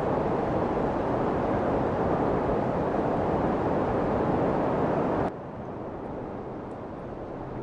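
Steady outdoor background rush, a noise with no distinct events, that drops abruptly to a quieter hush about five seconds in.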